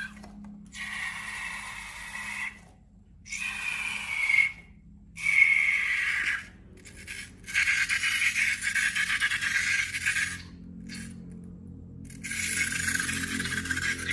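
Balloons and slime being handled in slime-making: a string of squeaky, hissing bursts, each a second or two long, with short pauses between.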